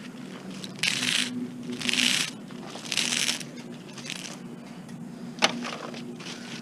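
Hand tool scraping at metal while copper is stripped from a dishwasher part: four rasping strokes about a second apart, then a single sharp click near the end.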